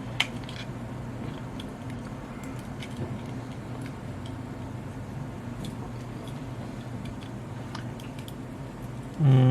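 Small plastic clicks and taps from handling the opened computer mouse as its circuit board is freed from the shell, over a steady low hum. A sharper click comes just after the start, and a brief louder pitched sound near the end.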